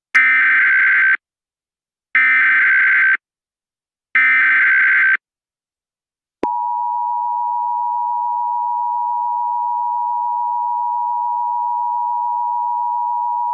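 Emergency Alert System signal: three one-second bursts of warbling SAME header data about two seconds apart, then the steady two-tone EAS attention signal starting about six seconds in. Together they open an emergency alert broadcast, here a tornado warning.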